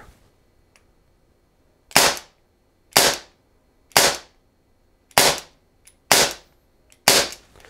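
Webley MKVI CO2 pellet revolver fired six times in double action, about one shot a second. Each shot is a sharp pop with a short fading tail.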